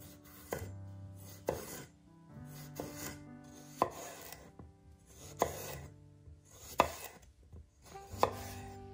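Hollow-edge chef's knife slicing a raw potato into rounds on a wooden cutting board: each cut goes through the potato with a short crunch and ends in a sharp knock of the blade on the board, about seven times, one every second and a half or so. Soft background music plays underneath.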